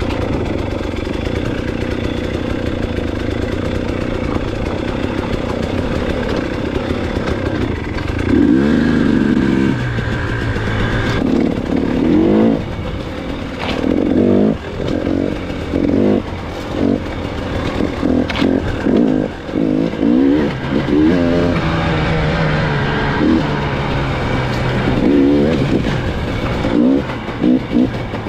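Dirt bike engine running steadily at low speed, then from about eight seconds in a series of short throttle bursts, the pitch rising with each one and falling back between them.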